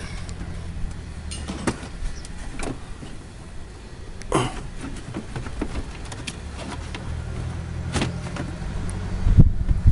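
Plastic knocks and clicks as a car's windscreen washer fluid reservoir is handled and fitted back into place behind the front bumper, over a low, steady hum. A few louder knocks come near the end.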